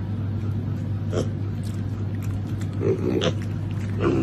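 Piglets giving a few short, soft grunts, about one, three and four seconds in, over a steady low hum.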